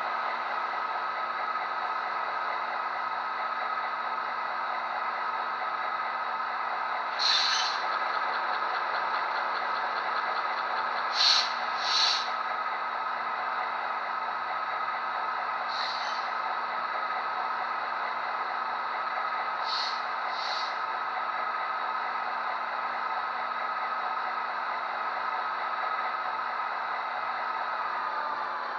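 HO-scale Amtrak F40PH model locomotive's sound decoder playing a steady diesel idle through its small speaker while the train stands at the station. Six short air hisses break in, two of them close together.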